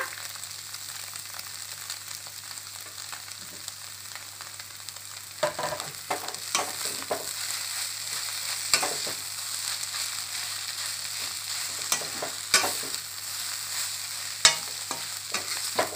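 Shredded cabbage, egg and chicken sizzling in hot oil in a kadai. From about five seconds in, a steel slotted spatula stirs and scrapes against the pan in irregular clacks.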